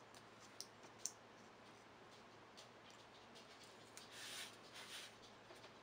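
Faint handling sounds of double-sided tape's paper backing being peeled off a cardboard template: a couple of light clicks about a second in, then a soft scratchy rustle about four seconds in.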